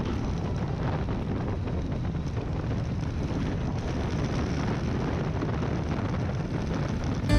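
A motorcycle riding at steady road speed: engine drone mixed with wind rushing over the microphone.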